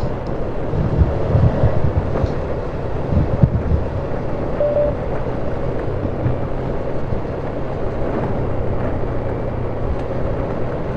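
Off-road vehicle engine running steadily on a dirt trail, with wind buffeting the microphone. A few low knocks and thumps come over the first few seconds.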